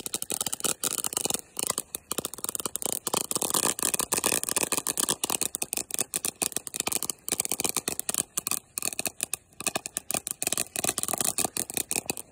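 Ground fountain firework spraying sparks with a dense, rapid crackle, which cuts off suddenly near the end.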